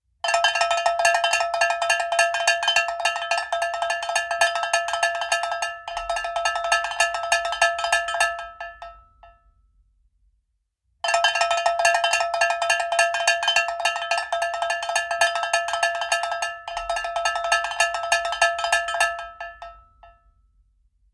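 Cowbell ringing with rapid, continuous clanging strokes in two runs of about nine seconds each, each fading out, with a short silence between them.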